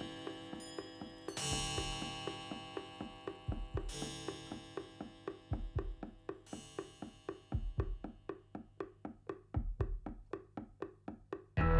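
Recorded music played back over Elfton Vegas II four-way floorstanding loudspeakers. Bell-like struck chords ring out and fade every couple of seconds over a clicking wood-block pulse that quickens. Near the end, full loud music with heavy bass comes in suddenly.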